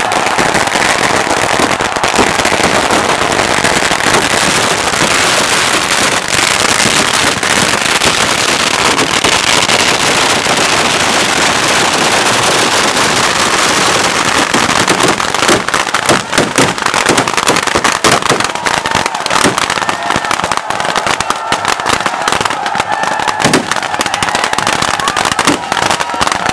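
Fireworks and firecrackers going off in a dense, continuous crackle of rapid pops with a hiss of sparks. About halfway through, the pops turn sharper and more separate.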